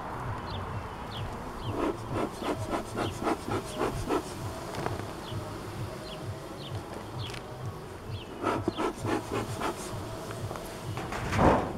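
Honeybees buzzing around an opened hive. Twice there is a quick run of short rasping strokes, about four a second, and there is a louder burst near the end.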